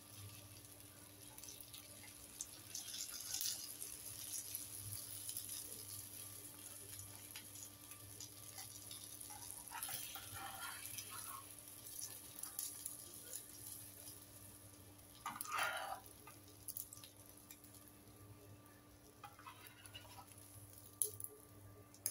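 Hot oil sizzling and crackling faintly around beef shami kababs shallow-frying in a pan. A metal slotted spatula scrapes and knocks against the pan a couple of times, about ten and sixteen seconds in, as the kababs are lifted out.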